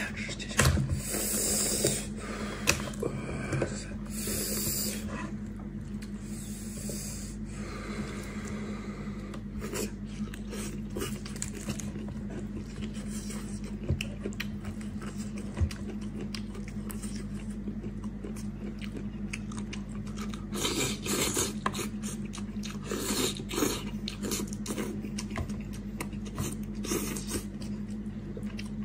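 Bare hands tearing and prying apart a cooked animal head in a chilli-oil sauce: wet squelching and tearing of meat and gristle, small cracks and clicks of bone, and chewing between pulls. A steady low hum runs underneath.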